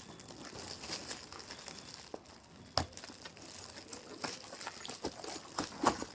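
Gift wrapping and packaging crinkling and rustling as a present is unwrapped, with a few sharp clicks and taps, one louder about three seconds in.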